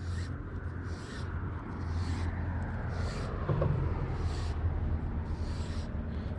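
Fishing line pulled off an open-bail reel by hand in repeated pulls, a short hiss about once a second, over a steady low rumble.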